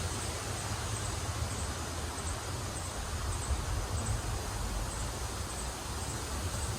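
Steady rain falling, a dense even hiss, with a low rumble of wind on the microphone.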